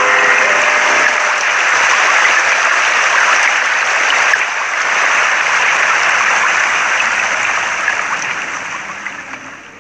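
Dense crackling noise like applause, steady and then fading out over the last couple of seconds.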